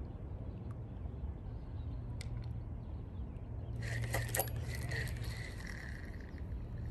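A spinning rod being cast: about four seconds in, a sudden swish and the line running off the spinning reel and out through the rod guides, leaving a thin whine that goes on to the end, over a steady low rumble.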